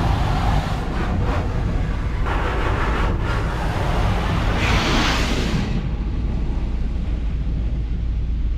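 High-pressure water jets of a touchless automatic car wash spraying the truck's windows and body, heard from inside the cab as a loud hiss. The hiss comes in surges, the strongest about five seconds in, and then falls away. A steady low rumble runs underneath.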